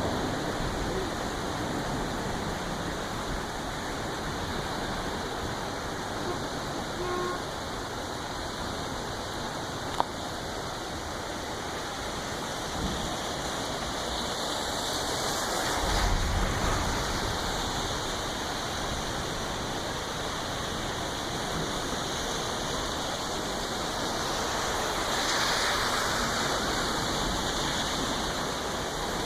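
Floodwater rushing steadily in a swollen stream, with a single sharp click about a third of the way through.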